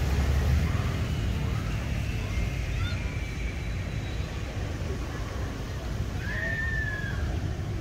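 Outdoor ambience: a steady low rumble of distant traffic and wind on the microphone, with a few faint high chirps and one short whistle about six seconds in.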